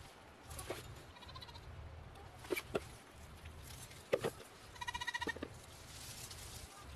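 Dry bean pods snapped off dead vines and dropped into a plastic bucket, a few sharp clicks and rustles. About five seconds in a goat bleats once, a short quavering call, with a fainter call earlier on.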